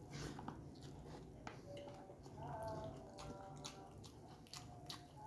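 Close-up chewing of a hand-fed mouthful of rice and side dishes, with scattered wet mouth clicks and smacks.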